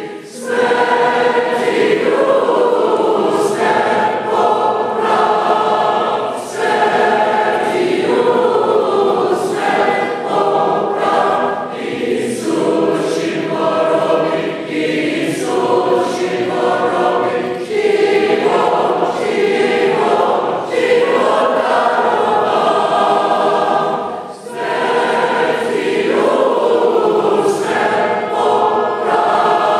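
Byzantine Catholic choir of men's and women's voices singing a Paschal hymn unaccompanied, in sustained chords that change every second or two, with short breaks between phrases.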